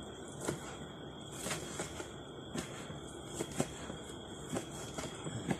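Two kitchen knives chopping cooked meat on a cutting board: irregular sharp knocks, about two a second.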